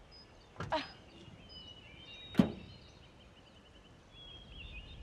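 A single sharp thud about two and a half seconds in, the loudest sound, over birds chirping and trilling.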